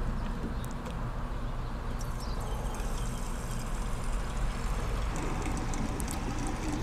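Gasoline pouring from a gas can's spout into a lawn mower's fuel tank, a steady flow with a low rumble underneath.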